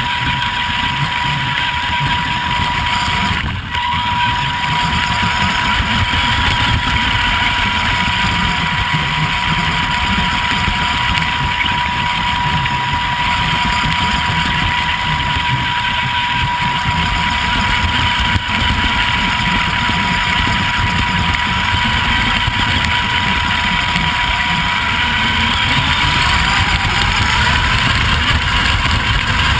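Vaterra Twin Hammers RC truck driving through grass, heard from a camera mounted on the truck: its electric motor and gears whine under a steady rush of noise, with a thin steady high tone. The sound dips briefly once, about three and a half seconds in.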